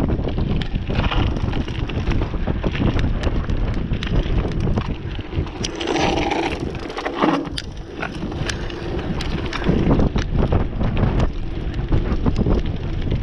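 Mountain bike riding fast down a gravel trail: wind buffeting the handlebar camera's microphone over the tyres crunching on loose gravel, with frequent rattles and clicks from the bike over bumps.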